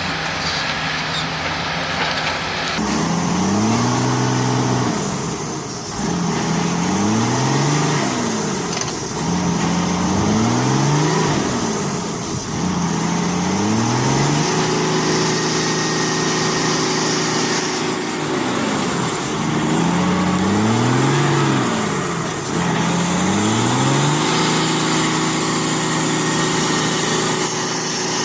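Logging truck's engine revving over and over, its pitch rising and falling every two to three seconds, and twice held high for several seconds.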